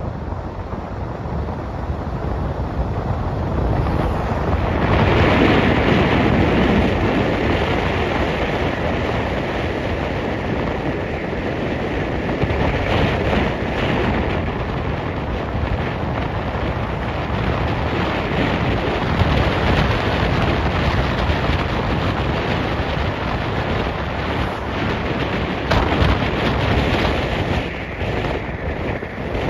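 Wind rushing over the microphone over the rumble of a vehicle travelling along a road, swelling louder about five seconds in.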